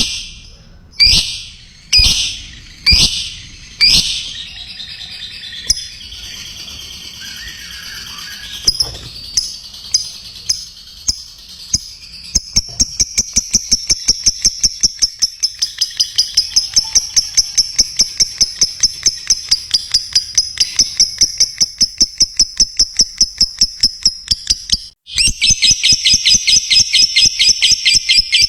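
Lovebird song: about five loud, high squawks a second apart, then chirping that runs into a long, fast chattering trill of evenly repeated notes, the 'ngekek' song. Near the end it breaks off suddenly and a louder, denser trill takes over.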